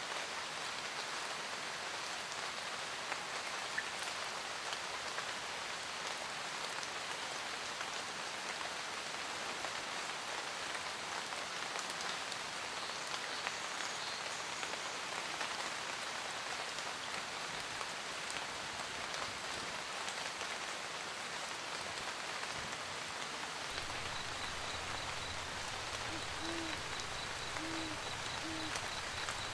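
Steady rain pattering on a camper van roof, with an owl hooting three times near the end.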